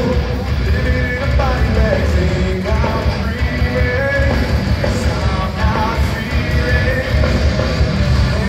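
Heavy rock band playing live: a male lead singer over distorted electric guitars, bass and drums, played loud through the concert PA.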